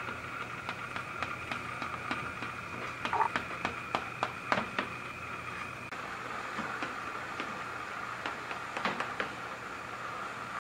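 A small knife cutting through layered baklava in a metal baking tray. The blade gives runs of quick sharp clicks and taps against the tray, loudest about three to five seconds in and again near nine seconds, over a steady background hum.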